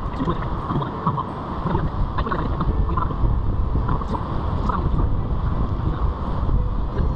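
Wind buffeting the microphone over the steady rush of a mountain river, with scattered small clicks and taps throughout.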